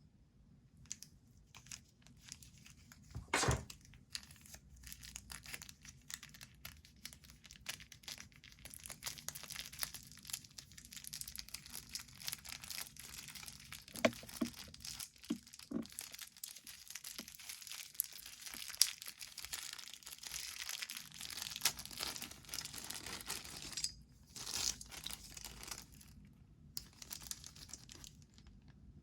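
Fast typing on a Leopold FC660c keyboard with silent Topre switches: a dense, even patter of keystrokes, with one louder knock a few seconds in and short pauses near the end.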